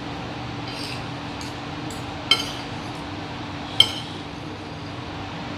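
Cutlery clinking against a dish while eating: a few light clinks, two sharper ones about a second and a half apart, over a steady low background hum.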